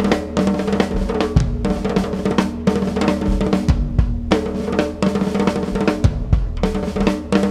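Acoustic drum kit played with sticks in a fast, dense improvised solo: rapid strokes across the toms and snare, with irregular heavy bass drum hits. A steady drone of held tones sits underneath.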